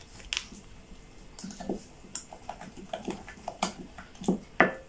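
Wooden spoon stirring thick chilli bite batter in a glass bowl, knocking against the bowl in short, irregular taps, a few louder ones near the end.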